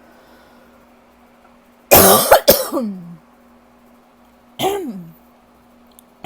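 A person's rough allergy cough: a hard double cough about two seconds in, then a single cough a couple of seconds later, and another starting at the very end. Each cough trails off with a falling pitch in the voice.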